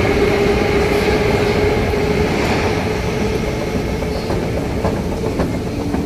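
Moscow metro train heard from inside the car: steady rumble with a whine that fades out about two seconds in, the noise slowly dropping as the train slows into a station.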